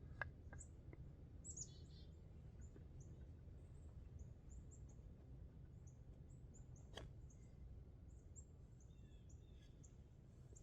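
Quiet woodland ambience with a steady low rumble and many tiny, very high-pitched bird chirps scattered throughout, plus a sharp click about seven seconds in.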